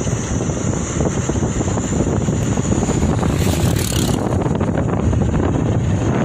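Wind buffeting the microphone over the steady rumble of a vehicle on the move, with a thin, steady high hiss; a brief brighter rush of air about three and a half seconds in.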